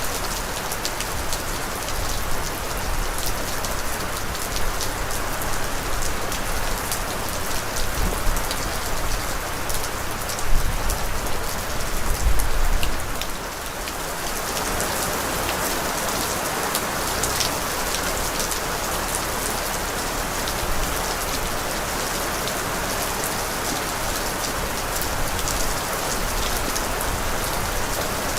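Steady heavy rain falling and pattering on surfaces, with many individual drop impacts. A few brief low rumbles come in the first half, after which the rain runs on evenly.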